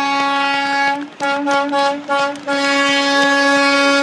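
Horn of a Kenworth T680 semi truck blowing on one steady pitch: a long blast of over a second, then four or five short toots, then another long blast.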